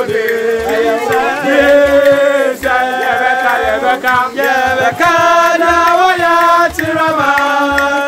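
Singing: a voice holds drawn-out notes in short phrases over a steady low beat.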